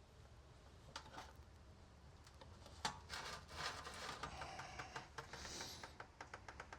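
Faint metal-on-metal scraping and sharp clicks as a seal puller works an oil seal out of a two-stroke engine's water pump housing, ending in a run of quick, even ticks.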